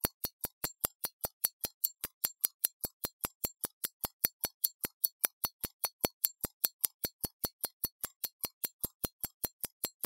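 Molnija 3602 mechanical pocket watch ticking steadily, about five even ticks a second, the beat of its lever escapement.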